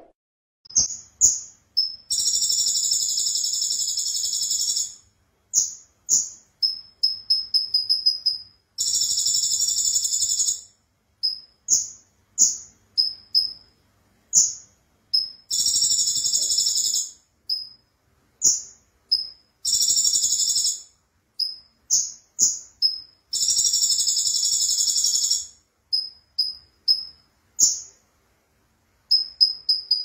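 Caged songbird singing: quick runs of short, high whistled notes alternating with long, buzzy, rattling trills of two to three seconds each, the pattern repeating over and over.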